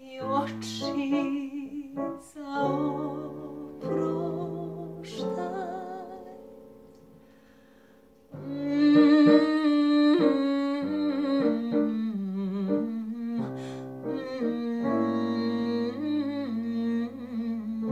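Piano with a woman's voice humming wordlessly over it in wide vibrato. The music fades almost to nothing about six to eight seconds in, then comes back suddenly and loud with full held piano chords.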